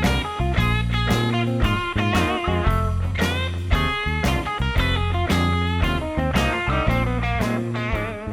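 Background music: a guitar-led rock tune over a steady bass line.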